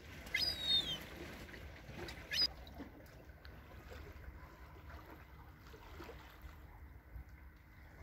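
Young gull begging: a high call falling in pitch about half a second in, and a shorter call about two seconds later. After that, only the low, steady wash of small waves against the shore rocks.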